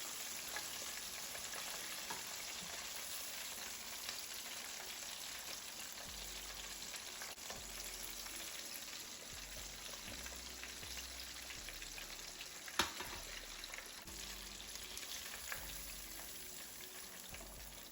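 Pieces of battered fish deep-frying in hot grease: a steady sizzle with small scattered pops, as moisture is still cooking out of the fish. There is one sharp knock about two-thirds of the way through.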